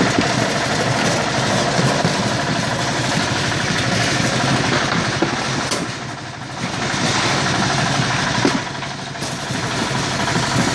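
Citrus grading machine running, its perforated sizing drums turning with a steady mechanical rattle and hum. A few sharp knocks come through, the fruit dropping off the chutes into the crates.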